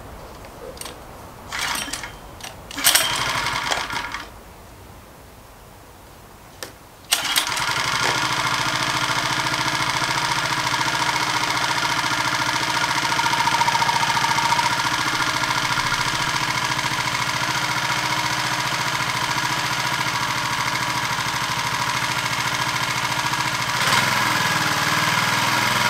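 Small 2.6 HP four-stroke petrol engine on a Clarke Tiger 1700 pressure washer being started: a couple of short pulls, then it catches about seven seconds in. It then runs steadily and evenly, its carburettor freshly cleaned.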